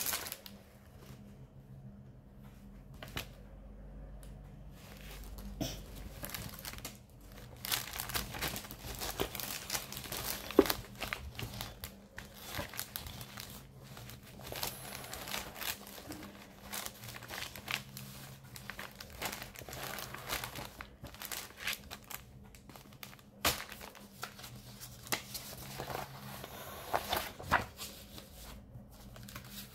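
Cross-stitch kit packaging crinkling and rustling as it is handled and opened by hand, with many short, sharp crackles. It is sparse for the first several seconds and busier from about a quarter of the way in.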